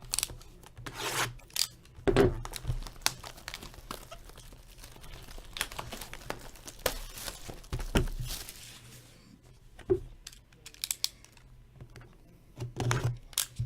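Plastic wrap being torn and crinkled off boxes of trading cards, in irregular rustling strokes with a few sharp knocks as the boxes are handled.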